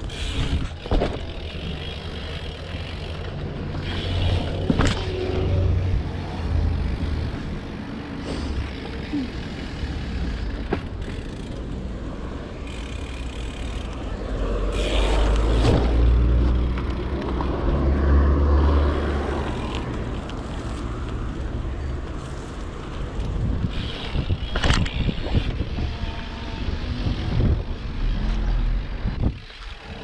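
Wind buffeting the microphone in gusts, under a BMX bike riding, with several sharp knocks and clatters from the bike.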